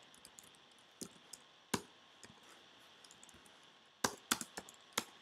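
Computer keyboard being typed on: a few scattered keystrokes, then a quicker run of about five keystrokes near the end.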